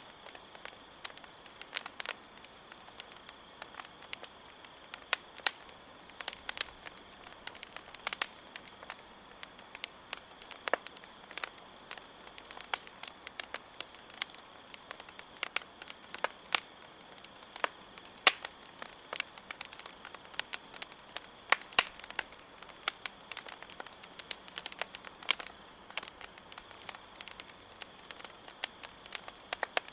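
Campfire wood crackling, with many irregular sharp pops and snaps, over a steady high chirring of crickets.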